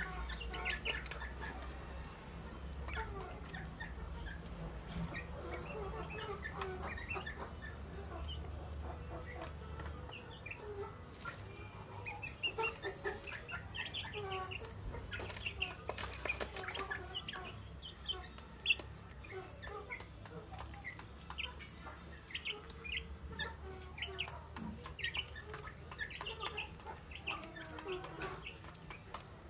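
A flock of young chickens cheeping and clucking as they peck at feed, with scattered sharp taps.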